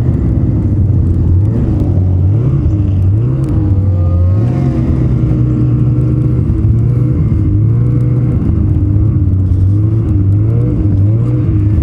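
Ski-Doo Renegade XRS 850 snowmobile's two-stroke twin engine running hard on the trail. Its pitch drops and climbs back in repeated steps as the throttle is eased and opened.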